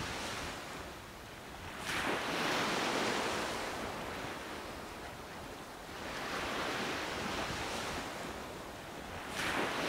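Sea waves breaking on a sandy beach: three swells of surf rushing in and fading away, a few seconds apart.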